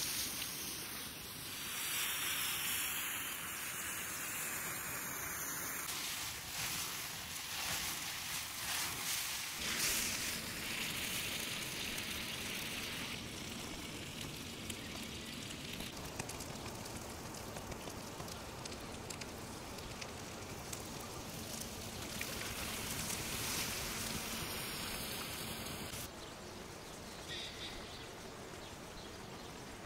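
Mushrooms sizzling in a skillet over a campfire after a splash of cognac is flambéed in the pan: a dense, steady sizzle with fire crackle, loudest at the start. It drops a little near the end.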